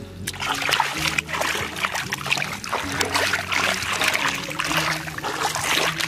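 Shallow muddy water splashing and trickling as hands dig and reach into it, starting about a third of a second in, over background music with low held notes.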